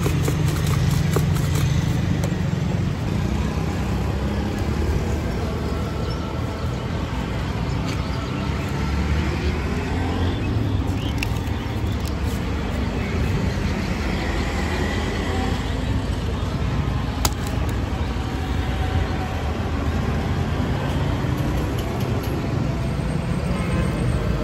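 Steady roadside traffic noise, a continuous low engine rumble under a general street hiss. In the first second or so there is a quick run of rhythmic clicks as chanachur is shaken in a plastic cup, and a few scattered clicks and rustles follow.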